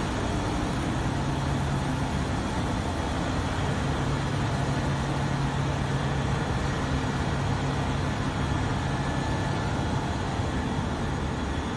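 Factory machinery on a mining-carpet (miners moss) production line running steadily: a continuous even machine noise with a constant low hum.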